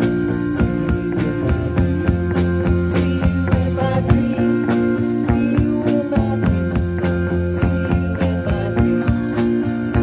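Live band playing a song: guitar, electric bass and drum kit, the drums keeping a steady beat of about four high strokes a second over sustained bass notes.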